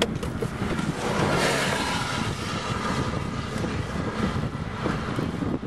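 Steady rushing rumble of a nearby tornado, an unbroken noise with no clear pitch.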